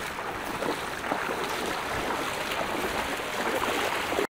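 Shallow floodwater lapping and sloshing in a steady wash that cuts off abruptly near the end.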